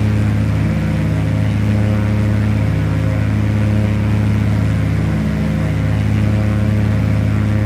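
Cessna T337G Skymaster's twin piston engines and propellers, one pulling in front and one pushing behind, running with a steady low drone.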